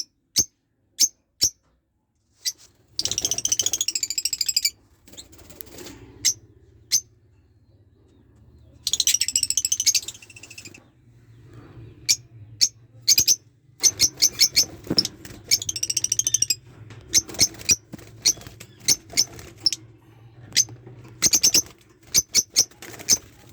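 Small cage bird chirping and singing: short, sharp, high chirps repeated throughout, broken by three warbling bursts of song of about two seconds each.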